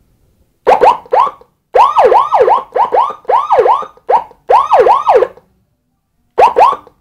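Electronic siren module sounding through a small 10-watt horn loudspeaker. It plays a fast yelping tone of quick rising-and-falling sweeps, several a second, in choppy bursts with short gaps. A longer pause near the end comes before one last short burst.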